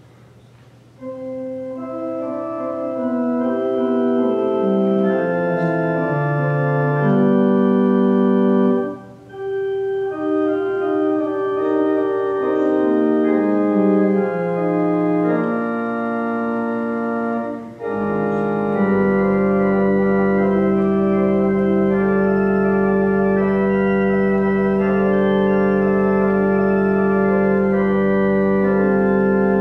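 Pipe organ playing a hymn in sustained chords, beginning about a second in, with brief breaks between phrases. About two-thirds of the way through, a deep bass pedal note enters and holds under the chords.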